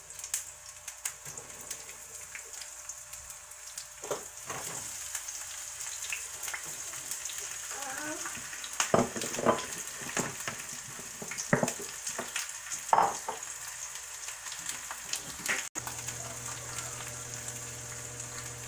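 Sliced onions sizzling as they fry in hot oil in a small pan, a steady hiss with scattered crackles. Several sharp clicks and knocks come between about 9 and 13 seconds in, and near the end the sound changes abruptly and a low hum comes in.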